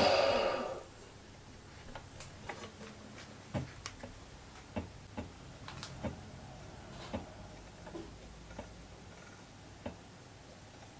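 A small metal lathe's motor and spindle spin down and go quiet within the first second. Then come a dozen or so light, irregular clicks and taps as the chuck is handled and turned by hand.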